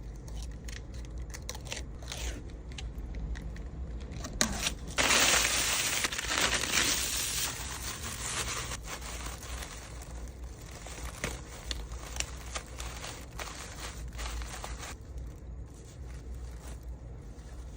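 Packing sounds: packaging rustling and crinkling, with many small clicks and taps. A louder stretch of crinkling or tearing starts about five seconds in and lasts a few seconds.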